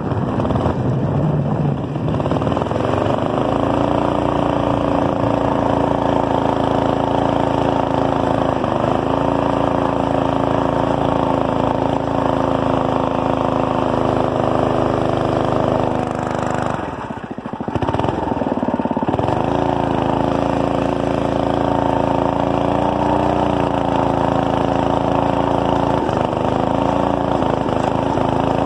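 Manco go-kart's 5 hp Briggs & Stratton flathead single-cylinder engine running under way, revving up in the first few seconds and then holding steady revs with small wavers. About two-thirds of the way through it drops off briefly and then comes back up.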